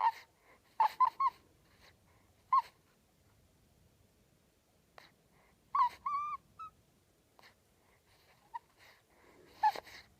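A two-week-old newborn baby's sleep noises: short high squeaks and little grunts with quiet gaps between them, a longer squeaky coo about six seconds in, and another squeak near the end.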